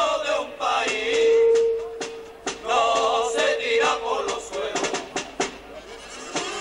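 A carnival murga performing: voices singing with scattered percussion strikes, and a long steady note held from about one to four seconds in.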